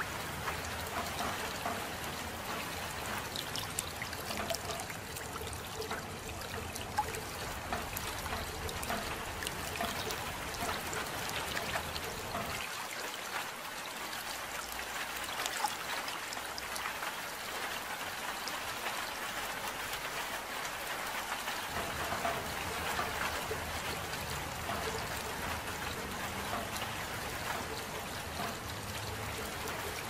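Steady soft rain, a dense patter of small drops. The low background rumble drops away for several seconds in the middle.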